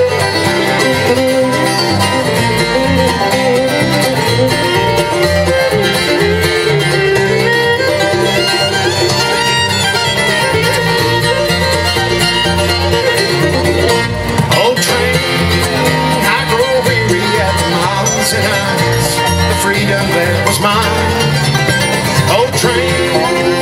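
Live bluegrass band playing: bowed fiddle over strummed acoustic guitars, mandolin and plucked upright bass, in a steady, even texture.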